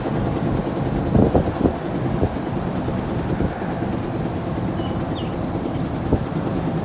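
Car driving slowly, heard from inside the cabin: a steady low rumble with a few short knocks about a second in and again near the end.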